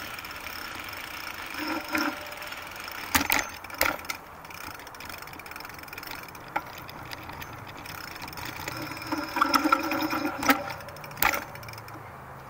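Bicycle ride noise: steady rolling with the frame and mounts rattling, broken by several sharp knocks and clatters as the bike goes over bumps and changes of surface, most of them three to four seconds in and again near the end.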